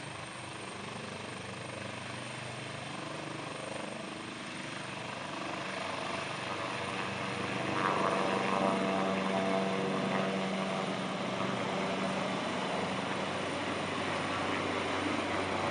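Air ambulance helicopter lifting off and climbing away, its rotors and engines running steadily and growing louder about halfway through as it rises.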